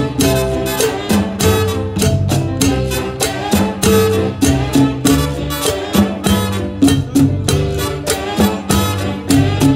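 A live band playing, with a drum kit close by keeping a steady beat on drums and cymbals under saxophones.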